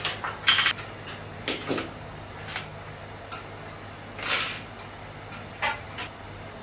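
Metal clinks and rattles as the steel pedal rod is handled and fitted on an industrial sewing machine's metal stand: about eight short knocks at uneven intervals, the loudest near the start and again about four seconds in.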